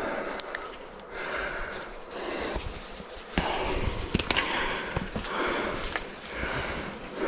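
A person breathing hard, about five heavy breaths in quick succession, winded from climbing a steep slope, with a few sharp clicks between the breaths.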